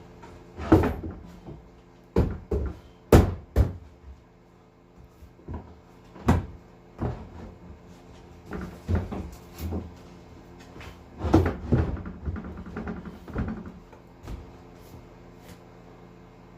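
A rower's seat being worked into place in a drift boat: irregular knocks, bumps and thuds of the seat against the boat, loudest a few seconds in and again past the middle.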